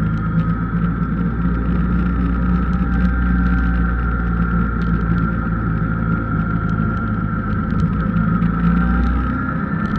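Car driving steadily through a road tunnel: a continuous engine and road drone with a steady higher whine. The deepest rumble drops away about nine seconds in, as the tunnel exit nears.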